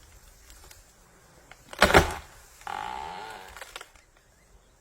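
Tree trunk cracking loudly once as an elephant pushes against it, then creaking for about a second as the wood bends under the strain.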